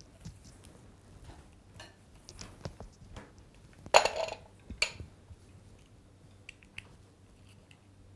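Cables being plugged in and a slider motor's remote controller box being handled: scattered small clicks and rattles, with a louder clatter about four seconds in as the box is set down on the slider rail, and a shorter knock just after.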